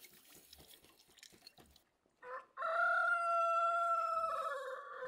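A rooster crowing once, about two seconds in: a short opening note, then a long held call that steps down in pitch near the end.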